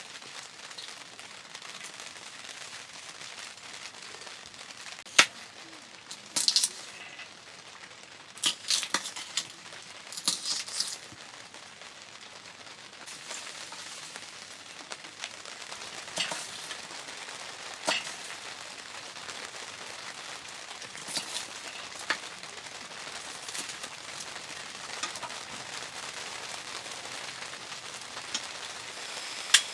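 Wood fire burning in a wood stove: a steady hiss broken by irregular sharp cracks and pops, a few in quick clusters.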